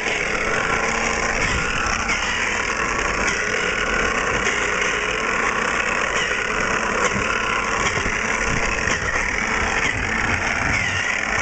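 Snow Joe Model 322 electric snow thrower switching on suddenly, then its electric motor and auger running steadily.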